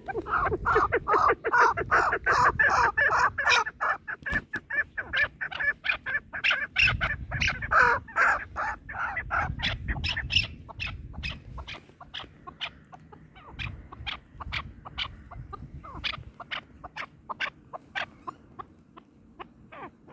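Chukar partridges calling: a rapid run of short, sharp repeated notes, busiest and loudest in the first half, thinning to spaced single notes in the second half.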